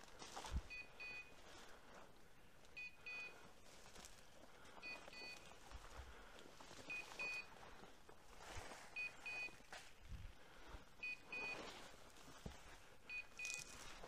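A hunting dog's beeper collar sounding faintly, a short double beep repeating about every two seconds. Underneath it, dry bracken rustles and crunches underfoot.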